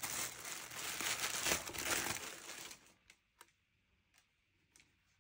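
Brown paper packing wrap crinkling and rustling as it is pulled off, stopping about three seconds in, followed by a few faint clicks.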